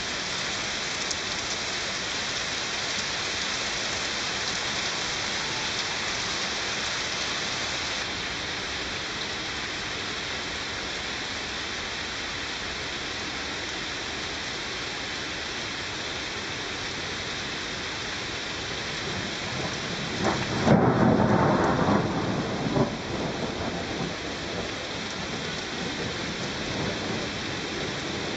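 Steady rain falling through a thunderstorm, with a loud thunderclap about three-quarters of the way through that rumbles on for about two seconds.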